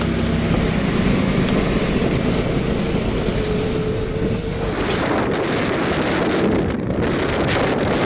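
Strong gale-force wind blasting the microphone over the steady rush of storm surf, with a whistling note for about a second in the middle and choppy gust buffeting later on.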